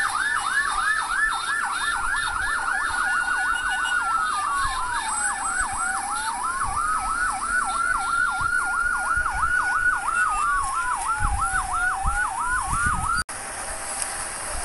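Emergency vehicle sirens, two at once: a fast yelp sweeping up and down about three or four times a second over a slow wail that rises and falls every few seconds. Both cut off suddenly near the end.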